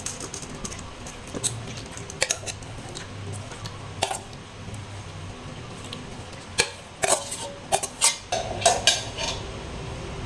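Utensils clinking and tapping against dishes in scattered sharp clicks, busiest about seven to nine seconds in, over a low steady hum.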